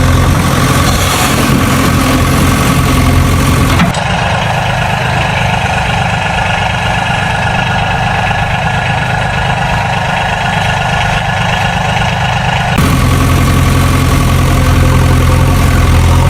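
Engine idling with a steady, deep hum. About four seconds in it cuts abruptly to a thinner, higher-pitched running sound, then cuts back to the deep idle a few seconds before the end.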